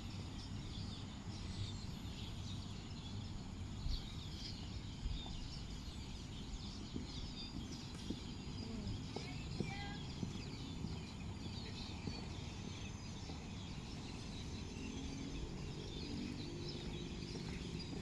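Outdoor ambience: a steady low rumble with many small birds chirping throughout, and a few faint knocks.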